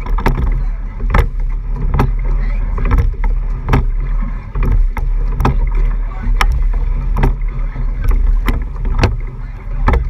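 Rowing eight (racing shell) moving fast through choppy water: a steady low rumble of rushing water and wind on the microphone. Sharp, uneven knocks and splashes sound about twice a second.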